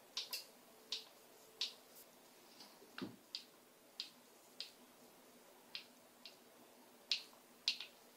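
Universal Audio Apollo X8P audio interface's front-panel buttons and knobs clicking as they are pressed and turned: about a dozen sharp, irregular clicks, with a duller thump about three seconds in.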